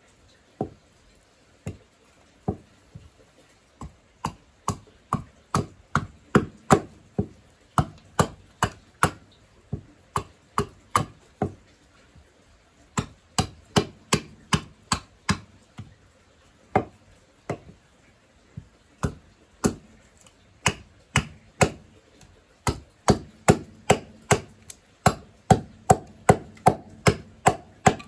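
Small carving axe chopping into a green-wood cup blank held on a stump, sharp cuts about two a second in runs with short pauses between them.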